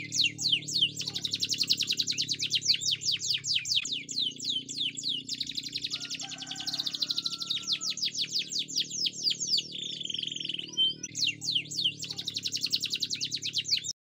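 Domestic canary singing a long, continuous song of fast repeated down-slurred notes and rolling trills, with a short buzzy phrase about ten seconds in.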